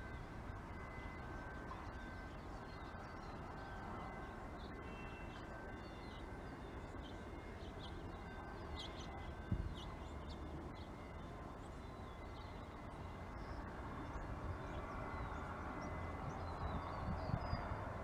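Low, steady outdoor background rumble with faint, scattered bird chirps; a single low thump about halfway through, and the rumble grows a little louder near the end.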